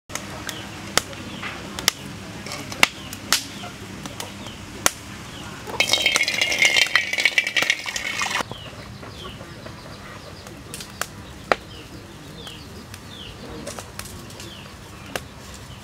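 Wood fire crackling with sharp snaps about once a second, then water poured into a steel wok, a loud rushing splash for about three seconds that stops abruptly. After that, small birds chirping in short falling notes, with an occasional snap.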